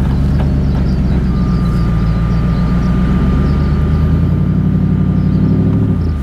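A 4WD's engine running steadily at low revs, its note rising a little about four seconds in and falling back near the end as the recovery strap between the vehicles is let slack.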